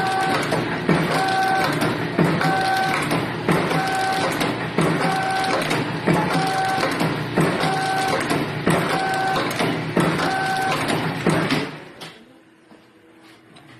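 Automatic packing machine running through its cycle about once a second, each stroke with a brief clatter and a short steady tone. It stops about twelve seconds in.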